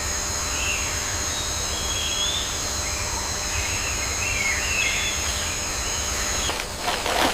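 Nature ambience: a steady high insect buzz with short bird chirps over it and a low rumble underneath. The buzz stops near the end, followed by a brief rustling burst.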